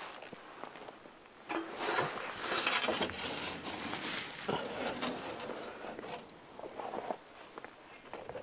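Steel shovel scraping ash across the metal floor of a Central Boiler Classic Edge 350 outdoor wood boiler's reaction chamber: a series of rasping strokes, loudest a couple of seconds in, then weaker ones.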